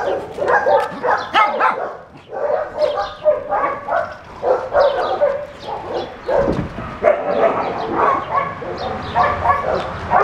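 Dogs barking and yipping, many short calls one after another.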